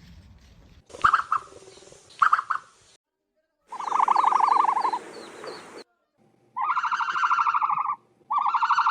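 Bird calls, much higher than a booming ostrich: two short calls, then a longer buzzy call, then two rapidly pulsing, trilled calls of about a second and a half each.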